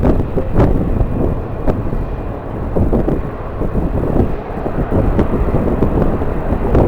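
Strong wind buffeting the microphone: a loud, gusting low rumble that swells and dips.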